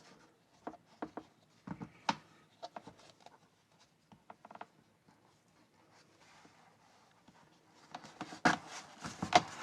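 A tablet being pressed into a tight-fitting hard plastic and rubber case: scattered light clicks and rubbing, then a cluster of louder plastic snaps and knocks near the end.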